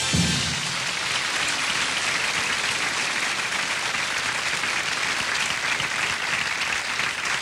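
An audience applauding steadily, just after a big band's held final chord ends with a low hit right at the start.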